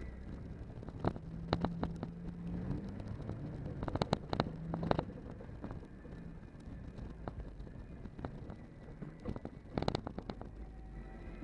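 Inside the cabin of an off-road vehicle driven hard over rough ground: the engine drones low under sharp knocks and rattles from the body and interior as it bounces, in clusters about a second in, around four seconds in, and again near the end.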